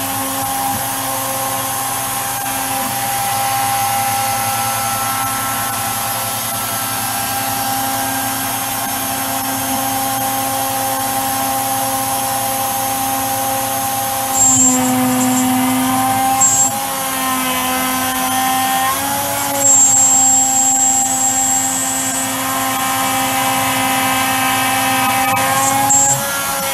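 CNC milling machine's spindle running while a 6 mm four-flute end mill cuts a full-width slot in an aluminium block at a reduced 0.75 mm depth per pass. It makes a steady whine that gets louder and brighter for short spells about halfway through and again near the end. The cut sounds much better, without chatter, a sign that the smaller depth of cut suits the machine.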